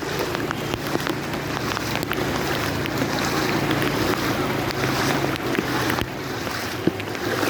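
Heavy rain pouring down steadily, with many sharp drop hits, over a faint low steady hum that stops about six seconds in.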